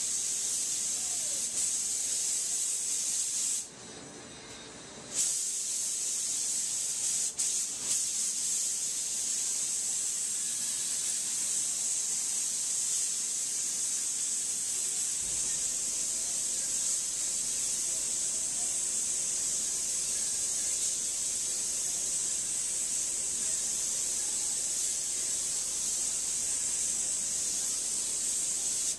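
Compressed-air spray gun hissing steadily as it sprays primer onto a car door panel. The hiss cuts out for about a second and a half, about four seconds in, as the trigger is let off, then resumes.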